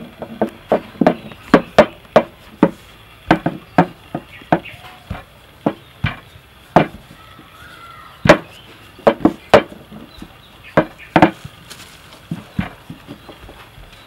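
Hands patting and slapping a sheet of dough flat on a floured wooden tabletop: a run of sharp, irregular slaps, about two a second, with short pauses.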